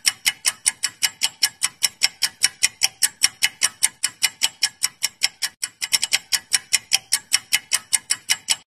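Clock-tick sound effect of a quiz countdown timer: fast, even ticking at roughly four to five ticks a second that cuts off suddenly near the end.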